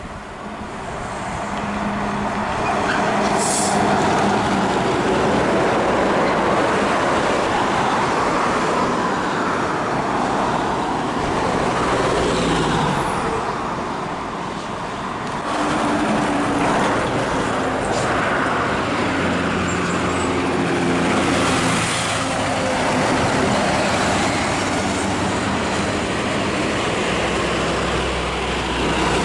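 Heavy Scania diesel trucks pulling away under load one after another, engines running loud, the engine note stepping up and down as they change gear.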